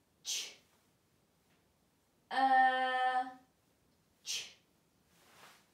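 A woman's voice sounding out the word "church" sound by sound: a short hissing "ch", a long steady "er" held for about a second, then another short "ch".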